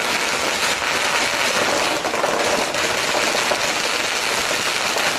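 A long string of firecrackers going off in a rapid, unbroken crackle of bangs.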